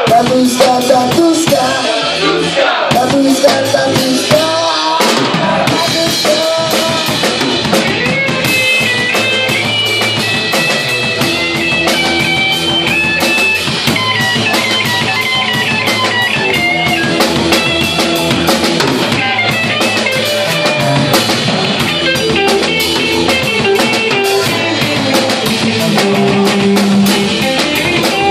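Live band playing loud music: electric guitar, bass guitar and a drum kit, with a quick run of high guitar notes through the middle.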